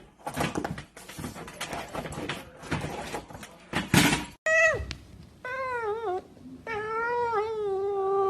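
A cat meowing: two short falling meows, then a long drawn-out yowl that wavers in pitch, after a few seconds of irregular rustling and scuffling noise.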